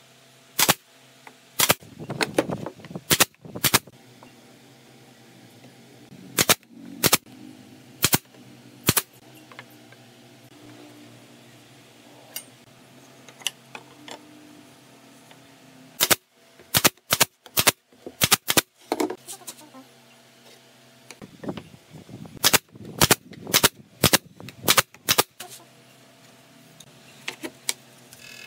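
Pneumatic brad nailer firing brads into a wooden frame: many sharp single shots, in quick clusters of several with pauses between.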